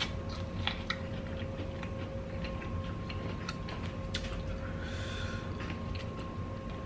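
Close-miked eating sounds: a person chewing corn on the cob, with scattered small wet mouth clicks and ticks and a short squishy rustle about five seconds in, over a faint steady hum.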